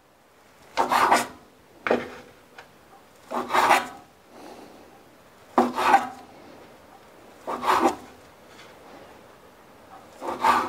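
Chef's knife slicing through a rolled egg-white crepe onto a wooden cutting board: about six separate scraping cuts, each about half a second long, one every one to two seconds.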